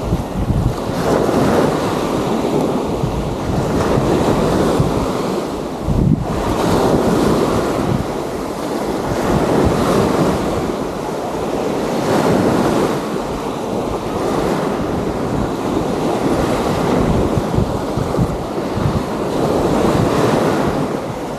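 Small waves washing onto a sandy beach, swelling and easing every few seconds, with wind buffeting the microphone in deep rumbles.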